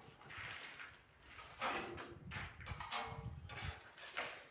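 Steel plastering trowel being loaded with wall putty: a few short, irregular scrapes and knocks.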